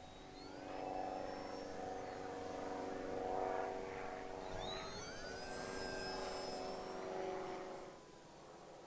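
Small electric RC model Cessna 182 flying, its motor and propeller giving a steady buzzing drone. It grows louder about a second in and fades away near the end as the plane passes by.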